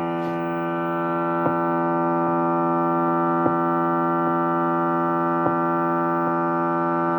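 Guitar amp speaker putting out a steady buzzing drone made of many stacked tones, with a faint tick about once a second. It is noise from the Crunch Xtreme Digital pedal, heard only when the pedal shares the pedalboard's power supply; on a separate supply it is silent.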